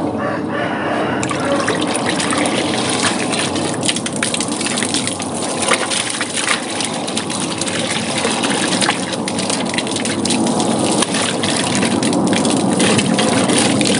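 Water jetting straight up from a small 12-volt DC submersible hydroponics pump held under water in a bucket, running on a mains adapter, and splashing back down into the bucket and onto the ground. It starts as churning water, and about a second in the spray builds into a steady gush with many splashes.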